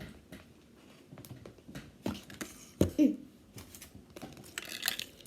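Small plastic toy parts and packaging being handled: scattered light clicks and rustles, with a longer rustle near the end.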